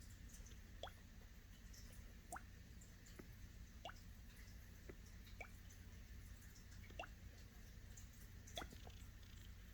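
Faint watery plops of gas bubbles breaking through fermenting liquid: about seven short blips, each sweeping quickly upward in pitch, coming at irregular intervals of a second or so over a low steady hum.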